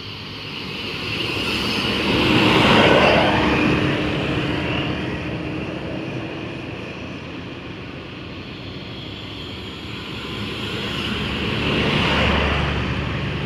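Coach buses driving past one after another, engine and tyre noise swelling as each passes close and fading again, with one pass about three seconds in and another near the end.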